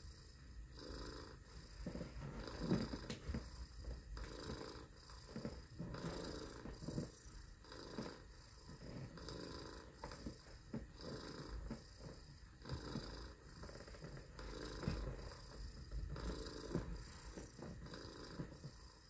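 A person purring like a cat, a low rough purr that comes in short stretches about once a second, in time with the breath.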